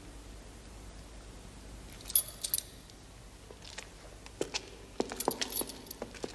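A bunch of keys jangling, with sharp metallic clicks: a short jingle about two seconds in and a quick run of clicks in the last second and a half.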